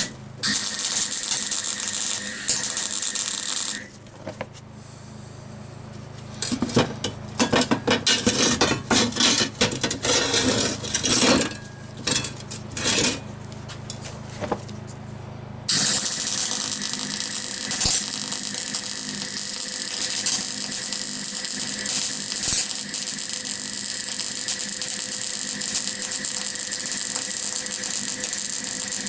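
Electric welding on a steel bracket: the arc crackles and spits, first in short stop-start runs like tack welds, then from about halfway through as one long continuous bead.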